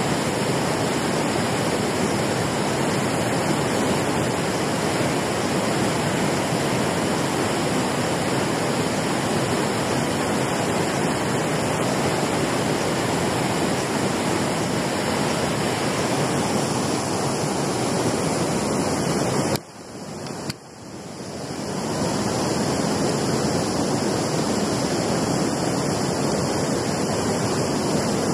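Water rushing steadily over a concrete weir spillway, a constant even sound of falling water. About two-thirds of the way through it drops out for a second or so, then fades back in and carries on as before.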